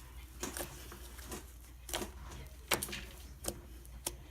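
Fluffy slime being worked by hand, giving irregular soft clicks and pops about once or twice a second, over a steady low background hum.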